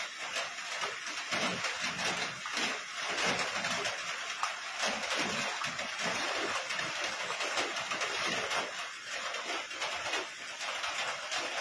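Heavy rain falling steadily onto floodwater: an even hiss made of many small drop hits.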